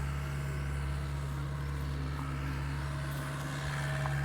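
Mini excavator's diesel engine running steadily with an even, low drone.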